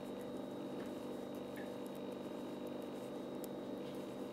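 Faint, light ticks of metal knitting needles working wool yarn, over a steady background hum.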